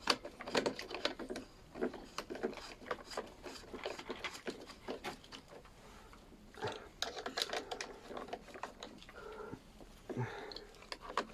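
Irregular clicks, taps and rattles of hand tools and small metal parts as a lawnmower's carburettor and air-filter housing are bolted back on.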